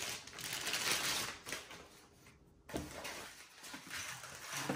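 Clear plastic bag crinkling and rustling as a trail camera is unwrapped from it, with a short pause about two seconds in, then a light knock and more rustling.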